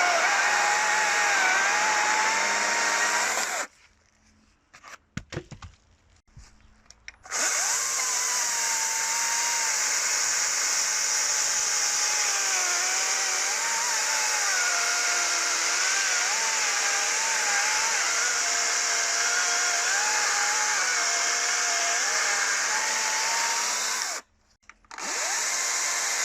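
Hychika CS40B 36 V brushless cordless chainsaw running with a steady high whine, its pitch dipping and wavering as it cuts through fruit-tree wood. The motor stops for about three and a half seconds a few seconds in and again for about a second near the end, starting up again each time.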